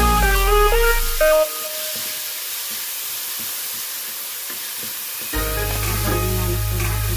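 Chopped onion and garlic sizzling in hot oil in a stainless steel pan as a spatula stirs them. Electronic background music plays over the sizzle, drops out about a second and a half in, and comes back near the end.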